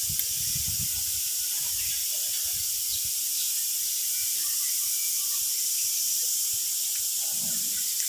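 A steady hiss, with a few faint low thuds in the first second and again near the end.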